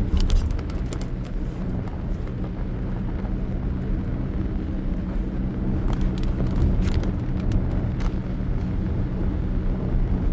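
A steady low mechanical hum and rumble, with scattered light ticks.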